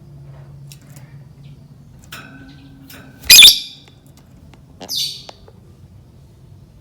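Lovebird squawking: faint short chirps, then one loud shrill squawk a little past three seconds in and a second, shorter squawk about five seconds in.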